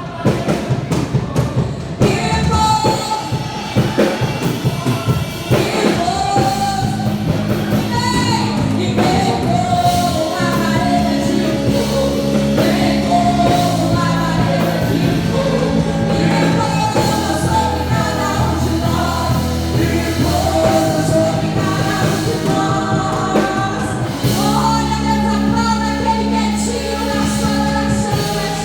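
Live gospel worship music: a praise band with drums and held bass chords, and voices singing the melody.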